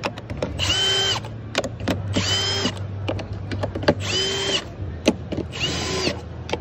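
Cordless drill driving deck screws in four short whirring bursts about a second and a half apart. Each burst rises in pitch as the motor spins up and drops as it stops, with light clicks in between.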